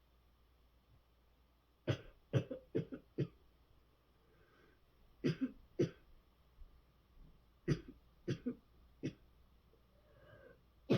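Hard coughing in three fits of short, sharp coughs, about three to five coughs per fit, with faint breaths between the fits.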